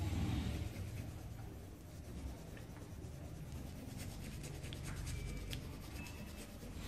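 Pen scratching faintly on paper as lines of a drawing are traced, over a low steady hum.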